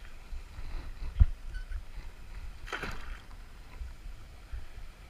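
Water sloshing and splashing as someone moves about in the river. There is a low knock about a second in and a louder splash near three seconds in, over a low rumble on the microphone.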